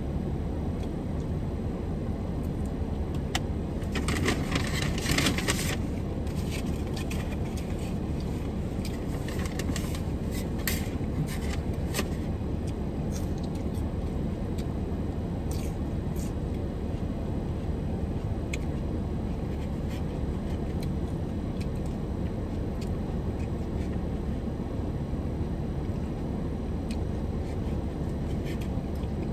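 Eating noises from a takeout meal: crackly rustling of food packaging and scraping clicks of utensils, busiest about four to six seconds in and again around ten seconds, over a steady low rumble inside a parked car.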